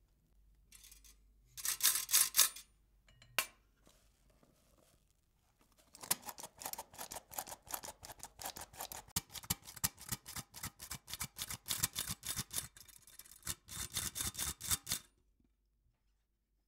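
Hand-held stainless steel flour sifter being worked: a short burst of clicking strokes, then a long run of rapid, even clicking strokes that stops suddenly near the end.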